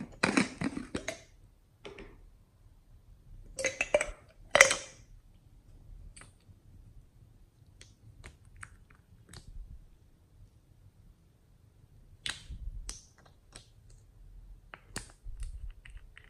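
Small plastic containers being opened and handled by hand: a strawberry-shaped case and a popsicle-shaped cosmetic tube giving sharp clicks and short scraping rattles in a few clusters, the loudest about four and a half seconds in.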